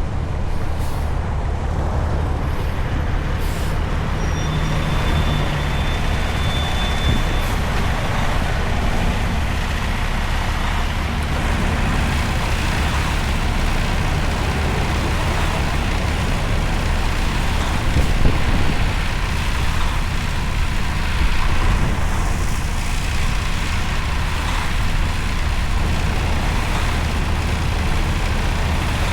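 Heavy semi-truck's diesel engine running steadily under a very heavy load, with a constant low rumble and road noise.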